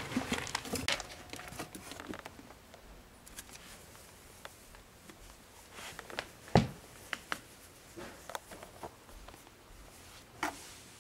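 Ferrets moving about close to the microphone: scattered light rustles, scratches and small clicks, with one sharper knock about six and a half seconds in.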